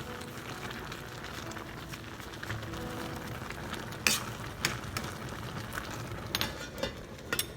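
A pan of saluyot (jute leaves) sizzling as it cooks, with several sharp clinks against the pot from about four seconds in and twice near the end. Background music plays faintly.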